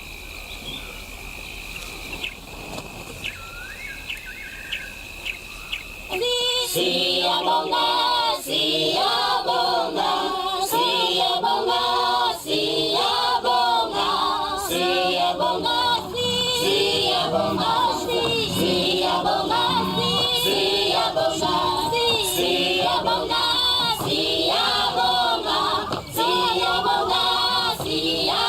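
Soundtrack music: a choir of voices singing, coming in loudly about six seconds in. Before it, birds chirp faintly over a steady high tone.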